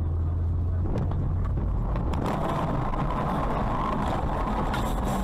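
Car road noise heard from inside the cabin: a steady low engine and road hum, a few sharp knocks between one and two seconds in, then a louder rushing tyre noise as the car veers sharply.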